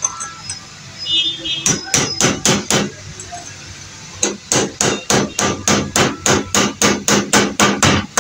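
Hand hammer striking a metal pipe used as a drift, driving a replacement bearing home in a submersible pump motor. A short run of five quick blows, a pause of about a second and a half, then steady blows about four a second.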